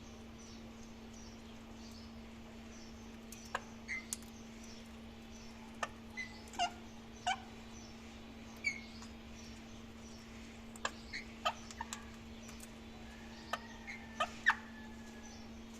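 Parrots cracking melon seeds in their beaks: scattered sharp clicks mixed with short chirps, and a longer held call near the end, over a steady low hum.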